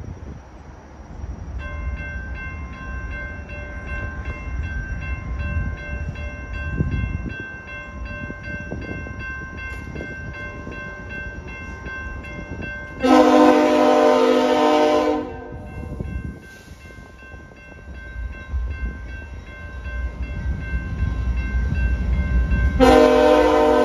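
Railroad crossing bell starts ringing about two seconds in and dings on steadily as a diesel locomotive approaches. The locomotive's air horn sounds one long blast about halfway through, and a second long blast begins near the end. Wind noise sits underneath.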